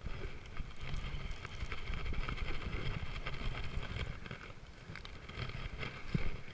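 Rough wind and handling rumble on a body-worn camera's microphone while an angler cranks a baitcasting reel to bring in a small largemouth bass, with scattered short clicks; the rumble starts suddenly at the outset.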